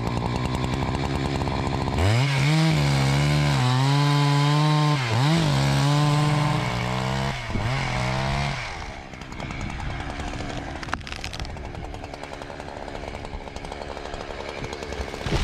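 Husqvarna 365 two-stroke chainsaw idling, then revved to full throttle about two seconds in, dipping briefly twice, and dropping back to quieter running after about nine seconds.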